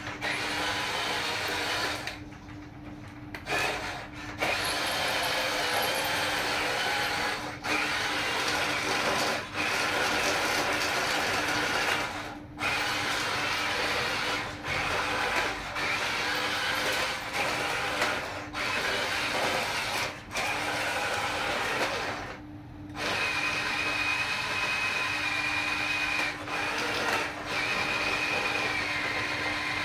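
Small electric motors and gearboxes of RC model construction vehicles whirring, stopping and starting again several times in short pauses, with a steadier, higher whine in the last few seconds.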